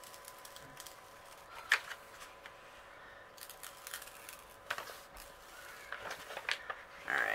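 Clear plastic cover sheet being peeled back off a sticky diamond-painting canvas: scattered crinkles and crackles, the loudest a sharp snap nearly two seconds in.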